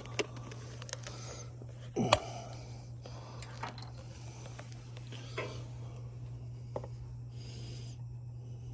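Scattered clicks and knocks of the engine's oil filler cap being popped off and oil bottles being handled, the loudest a knock about two seconds in, over a steady low hum.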